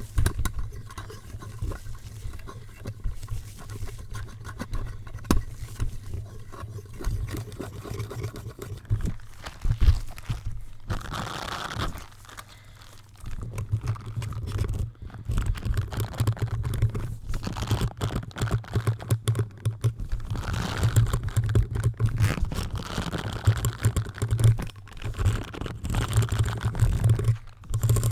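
Close-up rubbing, scratching and crackling directly on a microphone as it is handled and scrubbed, with a deep rumble from contact with the mic body. A brief hiss about eleven seconds in, then a short lull before the dense scratching resumes.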